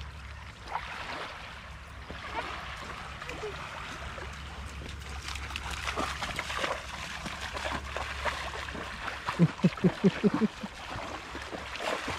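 Shallow lake water splashing and trickling as a dog wades and paddles in it, with many small splashes. A short run of about eight quick pitched pulses comes near the end.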